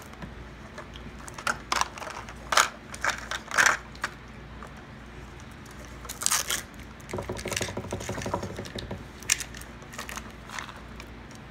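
Plastic Mini Brands capsule ball being handled and opened, its sealed compartment covers peeled back: scattered crackles and clicks of thin plastic and foil, with a short rasping stretch about seven seconds in.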